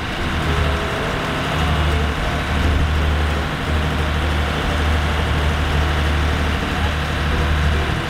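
Diesel engine of a military riverine patrol boat running with a steady low drone, under a broad rushing noise.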